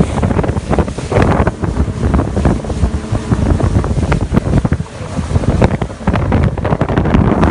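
Wind buffeting the microphone over the rush and slap of water against an inflatable boat running across open sea, surging and dipping irregularly.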